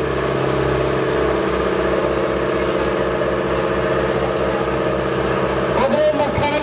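Diesel engines of two farm tractors running hard under load, chained back to back and pulling against each other in a tug of war. They make a steady, loud note with a low throb repeating about five times a second.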